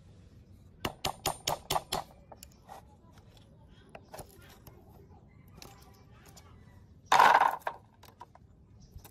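A steel tool tapping on a rusty steel linkage lever of a small four-stroke engine: about six quick metallic taps about a second in, then light clicks, and a louder scrape near the end.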